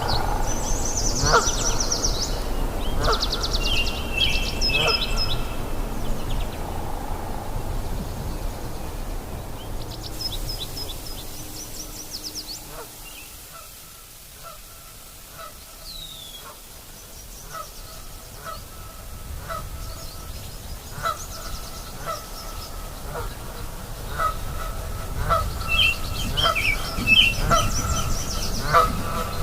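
Nyamang giving short honking calls, repeated roughly once a second and growing steadier in the second half, with small birds chirping in quick trills at the start and again near the end, over the steady rush of a river.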